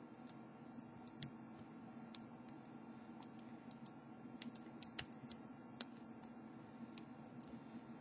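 Faint, irregular small metallic clicks and ticks of a hook pick working the pin tumblers of a cheap 4-pin Caliber steel padlock under light tension-wrench pressure, feeling for the binding pins. A few louder clicks come in the middle.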